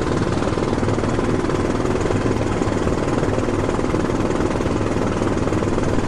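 Helicopter rotor and engine noise, steady and even, with a fast rapid chop.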